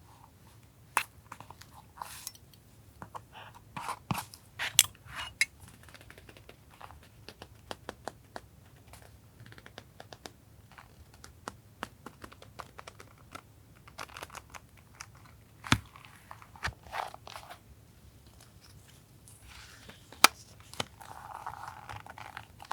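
Paper and stationery being handled for a collage journal: scattered crinkles, tears and short rustles with sharp taps and clicks, and a longer rustle near the end.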